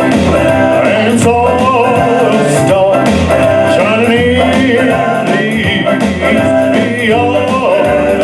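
Music: a man singing a rock-and-roll style gospel song over a band backing with guitar and bass.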